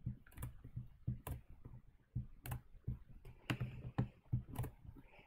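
About ten faint, irregular clicks of a computer mouse and keyboard keys as a computer is being operated.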